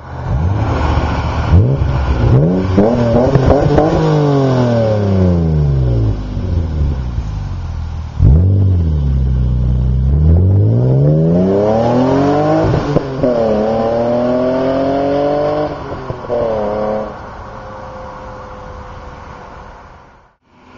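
1998 BMW E36 M3's 3.2-litre S52 straight-six through an Eisenmann Race cat-back exhaust, revved up and down and then accelerating hard. The pitch climbs steeply twice, with a sudden drop at each upshift, before it settles into a lower, quieter steady drone near the end.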